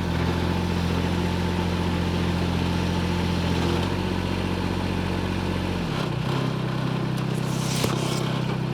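Hytop HT20 Pro mini excavator's engine running steadily under work; about six seconds in its note steps up to a higher pitch. A short knock comes near the end.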